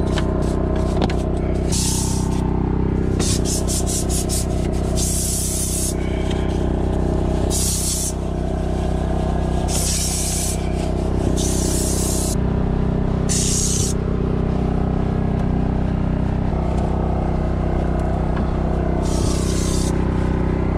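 Stiff detailing brush scrubbing the plastic seat base and floor of a van, in repeated passes of quick rubbing strokes, over a steady low hum.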